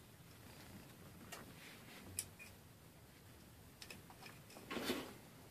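A few faint sharp clicks from small 3D-printed PLA plastic parts and flush cutters being handled, with a short scuffing rustle of the plastic parts just before the end.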